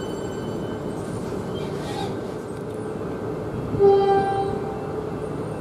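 Siemens Nexas electric train running through the station with a steady rumble of wheels on track. A short train horn blast sounds about four seconds in and is the loudest sound.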